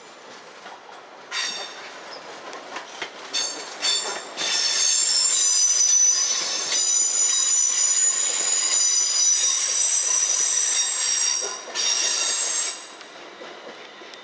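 London Midland Class 350 Desiro electric multiple unit's wheels squealing on curved track and pointwork, a high-pitched metal-on-rail squeal. It starts about a second in as short bursts, then holds steadily for several seconds, and cuts off near the end after one last brief burst.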